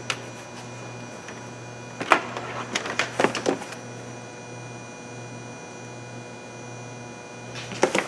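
Hands working in an engine bay on a vacuum hose and its fitting: a click, then a cluster of sharp clicks and rattles about two to three and a half seconds in, and a few more near the end, over a steady low hum.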